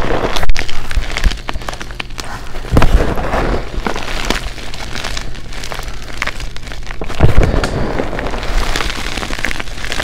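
Gloved hands squeezing and crushing crumbly glittery gym chalk, a dense crunching and crackling. Heavier crushes come at the start, about three seconds in and again just past seven seconds.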